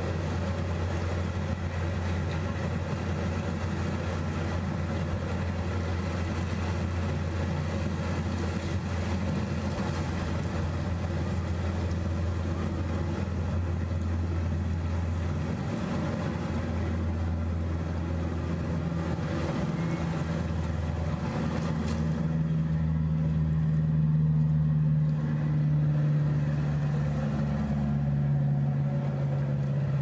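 A steady low engine hum, with a second, higher engine note coming in about halfway through and growing louder near the end, over the wash of waves on rocks.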